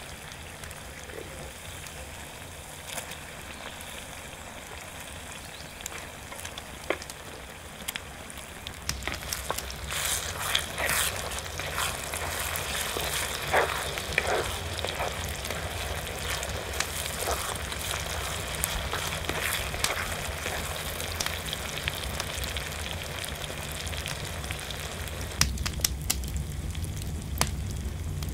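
Food sizzling as it fries in sheep tail fat on a sadj, a steady hiss with scattered crackles and pops that grows louder about nine seconds in.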